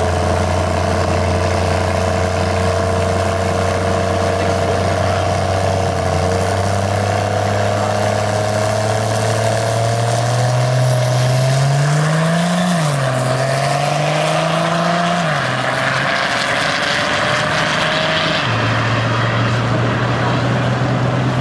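Drag car engine making a test pass down the strip: a steady engine hum, then the pitch climbs under acceleration, drops sharply at a gear change about two-thirds of the way in, climbs again and falls away a few seconds later before settling back to a steady hum.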